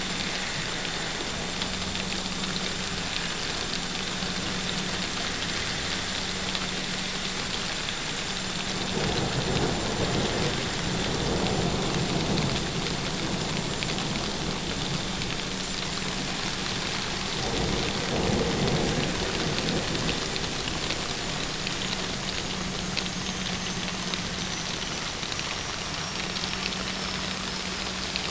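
Steady rain falling in a thunderstorm, with two low rolls of thunder, a longer one about a third of the way in and another about two-thirds in.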